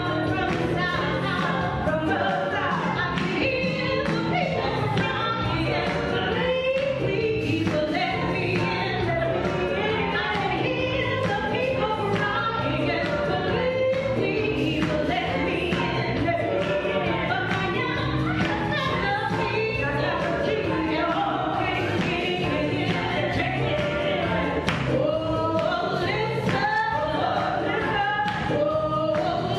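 A choir singing a gospel song with instrumental accompaniment, continuously.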